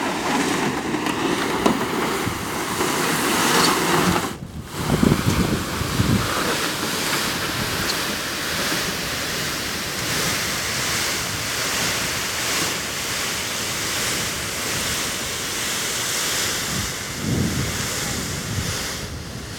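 Steady wind buffeting the microphone, a constant rushing noise with a few stronger gusts. There is a brief lull about four seconds in.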